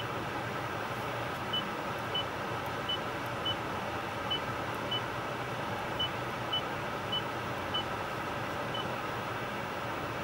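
Toyota Entune 2.5 touchscreen giving a short high beep for each key pressed on its on-screen keyboard, about a dozen beeps at an uneven typing pace, over a steady background hum.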